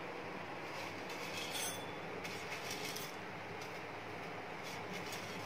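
A steady background hiss with a few faint, soft scrapes and rattles as roasted dals and cumin seeds are scooped by hand off a steel plate into a steel mortar.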